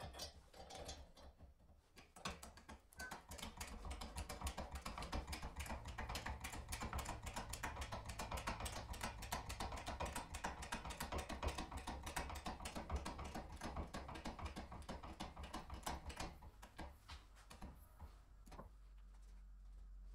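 Hydraulic bottle jack in a homemade pipe bender pressing a steel tube around the former die, with dense, rapid, irregular clicking and creaking of metal. The clicking starts about two seconds in and dies away a few seconds before the end, over a steady low hum.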